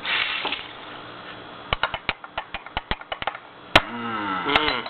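A spoon stirring in a shot glass, clinking against the glass in a run of quick, irregular ticks, with one louder clink about three-quarters of the way in. A short voice sound follows the loud clink near the end.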